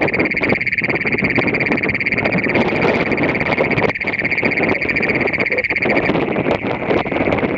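Great Plains toad (Bufo cognatus) calling with its vocal sac blown up: one long, loud, steady high trill that cuts off about six seconds in, after which a fainter trill carries on behind it.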